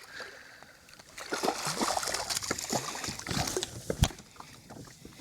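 Hooked speckled trout thrashing and splashing at the water's surface beside a kayak, for two to three seconds starting about a second in, ending with a single sharp knock about four seconds in.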